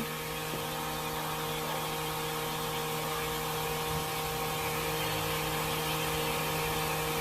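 Steady electrical hum with several constant tones over a hiss, and one sharp click at the very start.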